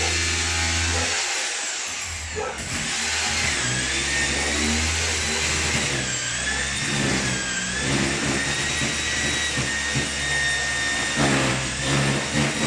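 A motor running with a high whine: a low hum stops about a second in, and the whine drops in pitch about two to three seconds in, then holds, wavering a little.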